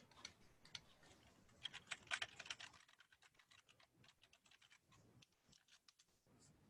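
Faint typing on a computer keyboard: a quick flurry of keystrokes about two seconds in, then scattered keystrokes.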